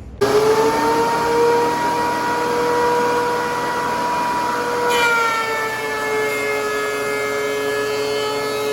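DeWalt DW735X thickness planer running with a loud, steady high whine. About five seconds in the pitch drops slightly and the sound grows fuller as a 4x4 is fed through the cutterhead.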